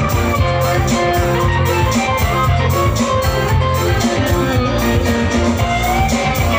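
Live dance music played on an electronic keyboard through a PA system: a guitar-like lead melody over a heavy bass line and a steady beat.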